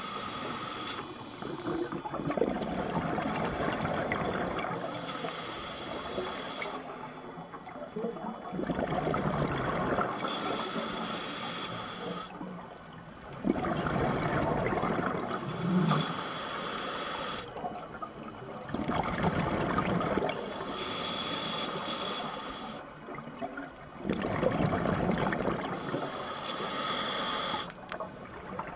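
Scuba diver breathing through a regulator underwater: a hissing draw on each inhale and a gurgling rush of exhaled bubbles on each exhale, about five breaths, one every five to six seconds.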